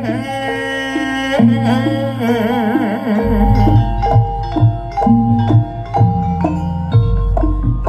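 Live jaranan gamelan music: struck metallophones ringing out a repeating melody with a wavering melody line over it in the first half, then heavy drum beats joining from about three seconds in.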